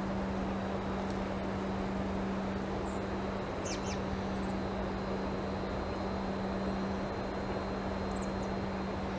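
Steady background noise with a constant low hum, and several brief high bird chirps, the clearest a pair about four seconds in and another near the end.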